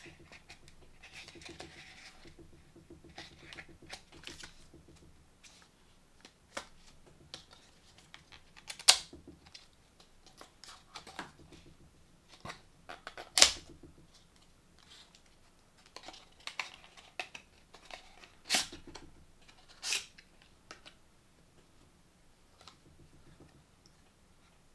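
Small cardboard SSD retail box being handled and opened by hand: soft rustling and scraping of card as the end flap is pried up and the inner box slid out, with several sharp snaps of the card. The loudest snaps come about nine and thirteen seconds in.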